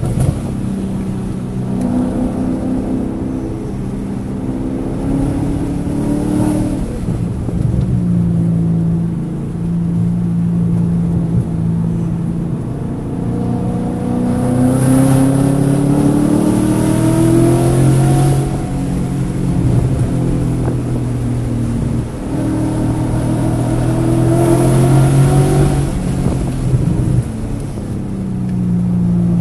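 Car engine at full throttle on a race track, its pitch rising steadily under acceleration twice and dropping back between. It is the engine that was misfiring on cylinders 1, 3 and 4 that session, with the check-engine light blinking.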